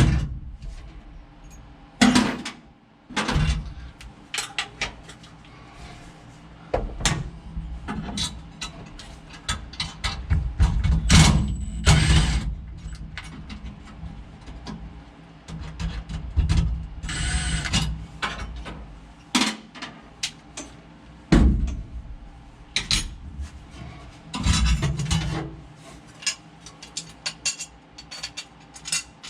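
Hand-tool work on metal car parts: scattered clinks, knocks and scrapes of a wrench and hardware as bolts and nuts are fitted and tightened.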